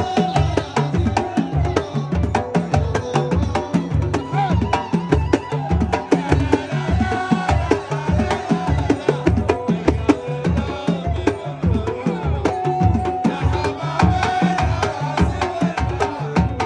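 Arabic song with a deep drum beating a steady, even rhythm under a wavering melodic line.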